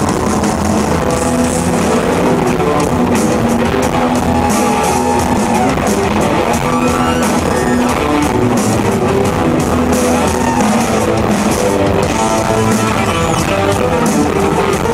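Live progressive rock band playing an instrumental: electric guitar, bass, keyboards and a drum kit together, loud and steady.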